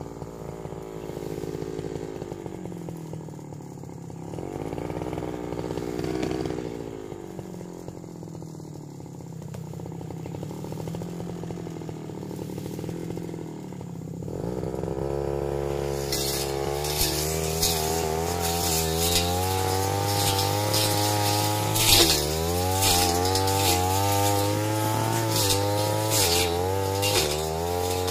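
Backpack brush cutter running, its engine speed swelling and falling through the first half, then held at high revs from about halfway in as it cuts through dense weeds and brush, with many sharp ticks of the cutting head striking stems.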